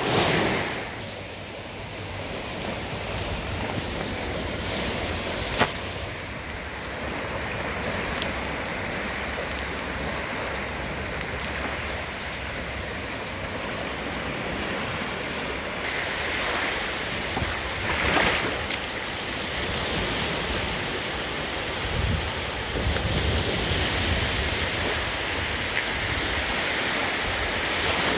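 Small sea waves washing onto a sandy shore, a steady rush that swells louder near the start and again past the middle as waves break, with wind on the microphone. A single sharp click about five and a half seconds in.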